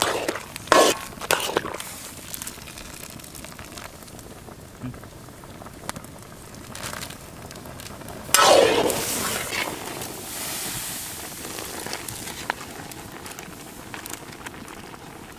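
A slotted metal ladle scooping boiled prawns out of a wok of hot liquid over a wood fire: clinks and knocks of the ladle on the iron wok and liquid splashing and draining back, with a loud splashing rush about eight seconds in.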